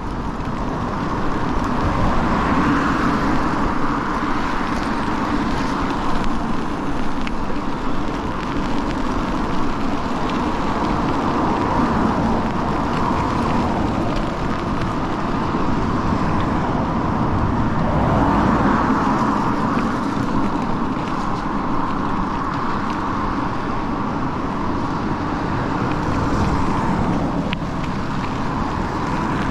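Steady road noise from an e-bike riding a rain-wet street: tyres hissing on wet pavement under the hum of traffic, with passing cars swelling the noise several times.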